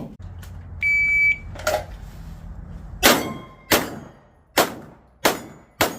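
Shot timer's start beep, a high steady tone lasting about half a second, then about two seconds later a fast string of five pistol shots at steel targets, with the plates ringing after hits.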